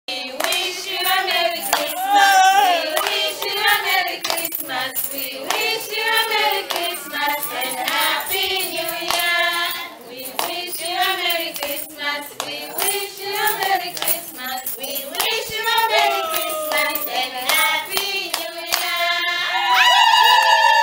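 A group of voices singing together with rhythmic hand clapping. Near the end, a long high call with falling pitch joins in.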